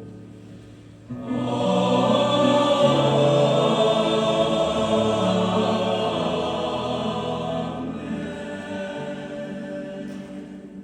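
Choir singing held chords: a new phrase comes in loudly about a second in, swells, and dies away near the end.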